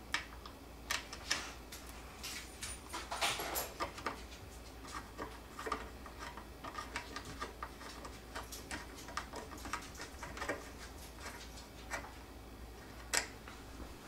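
Scattered light clicks and taps of a screwdriver and hands working the plastic control panel on the top edge of a dishwasher door, with a few sharper clicks among them.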